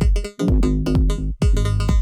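Electronic dance music played live: sustained synthesizer chords over deep kick-drum hits that fall in pitch. The sound drops out briefly twice, in a choppy rhythm.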